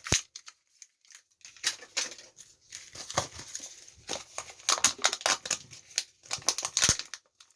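A Kinder Joy egg's foil wrapper being torn open and crinkled by hand, in irregular rustles, with a couple of sharp plastic clicks near the start and near the end.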